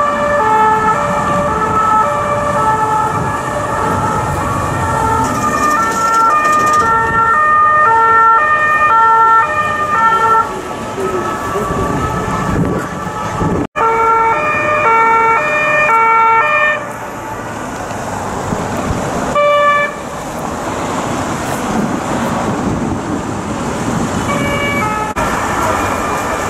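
French police two-tone sirens, several at once and out of step, alternating high and low notes over road traffic. About 17 seconds in the sirens stop, leaving engine and tyre noise of the traffic, with short siren bursts twice later.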